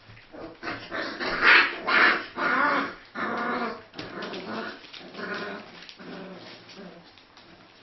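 Four-week-old Central Asian Shepherd puppies growling and yelping as they play-fight: a run of short, pitched puppy calls, loudest in the first few seconds and fainter toward the end.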